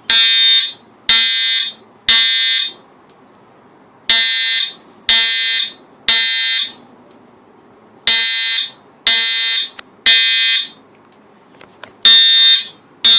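Fire alarm horn sounding the temporal-three evacuation pattern: three buzzy, harsh blasts about a second apart, then a pause, repeating every four seconds. The horn is driven by a homemade fire alarm panel in alarm after a pull station was pulled.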